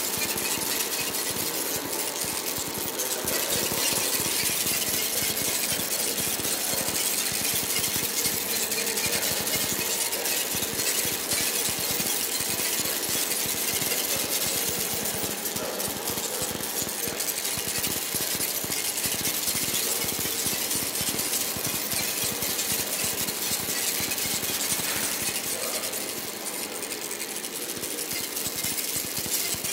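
Abstract electronic noise soundtrack of an audio-visual installation, played over stereo speakers. It is a dense, steady wash of hiss with rapid, machine-like crackle and buzzing, and dips slightly near the end.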